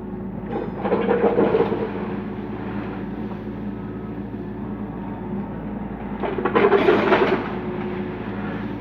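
Kubota U35 mini excavator's diesel engine running steadily, rising twice into a louder, rough rattling and scraping stretch, about a second in and again near the end, as the bucket works stone and sand.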